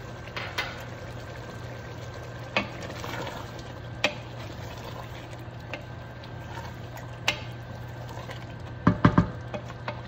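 Thick curry of mutton and turnip bubbling and sizzling over high heat in a metal pressure cooker while a wooden spoon stirs it. The spoon knocks against the pot now and then, with a quick run of three louder knocks near the end.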